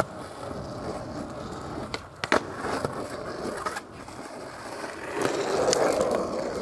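Skateboard wheels rolling on asphalt, broken by a few sharp clacks of the board popping and landing, the loudest about two seconds in. The rolling gets louder near the end.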